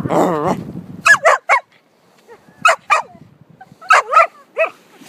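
Australian Shepherd puppy barking: about eight short, high barks in three quick clusters.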